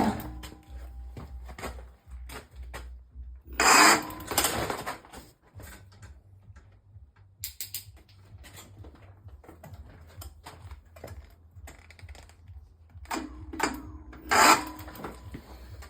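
Tesway X7 e-bike motor driving the wheel on the floor, making loud, weird grinding bursts three times, with irregular clicking and rattling between them over a steady low hum. The noise shows with the tire on the ground, while the motor runs silently with the wheel lifted, a fault in a bike bought a day ago.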